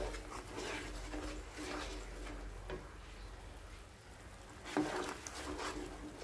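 Wooden spatula stirring a thick, wet chili paste in a nonstick pan, making soft, irregular scraping strokes. One stroke about five seconds in is louder than the rest.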